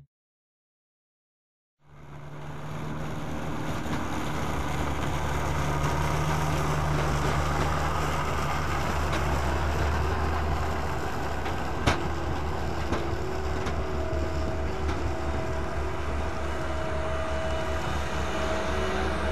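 Heavy farm machinery at a sugar beet harvest, a beet harvester's diesel engine running steadily with a low hum. It fades in after about two seconds of silence, and there is one sharp click about ten seconds later.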